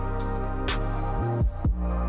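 Background music: sustained bass and chord notes with a few drum hits.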